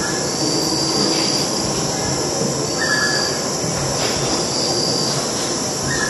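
Dense tropical rainforest ambience: a steady din of insects with short, high-pitched calls repeating every second or two.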